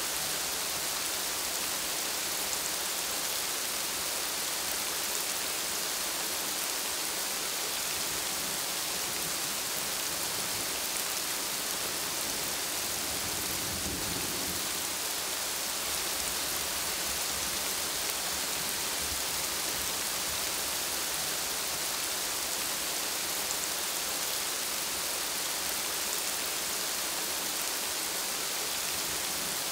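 Steady rain falling on broad plant leaves, an even hiss of drops, with a brief low rumble about halfway through.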